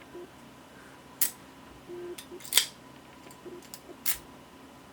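A lock being handled: about six short, sharp clicks and taps, irregularly spaced, the loudest about halfway through.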